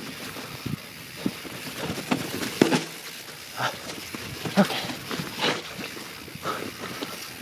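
YT Jeffsy 27 mountain bike rolling down a wet, rocky, rooty trail: irregular knocks and rattles as the bike goes over rocks and roots, with a few sharper knocks along the way.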